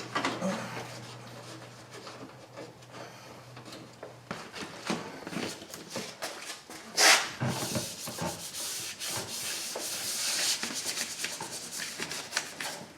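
Plastic door trim panel and its push-in retaining clips being handled: irregular rubbing and scraping with scattered clicks, and one sharp knock about seven seconds in.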